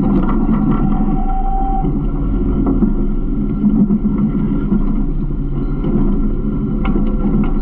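Garbage truck running with a steady low engine drone and scattered rattles and clanks. A thin steady whine sounds for about the first two seconds.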